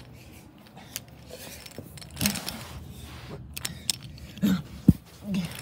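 Handling noise: scattered clicks and rustling, with a sharp knock about five seconds in.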